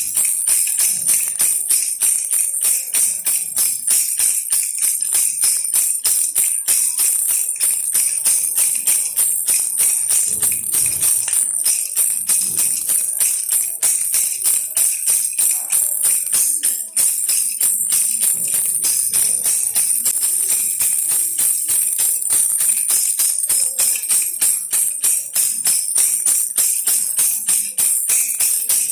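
Baby rattle toy shaken steadily and quickly, giving a dense, unbroken run of small high rattling hits.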